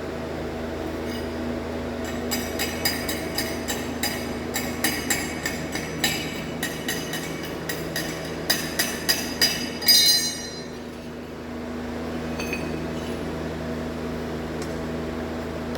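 A quick, irregular run of light ringing metal taps on stainless steel, several a second, getting louder and stopping about ten seconds in, over a steady machine hum.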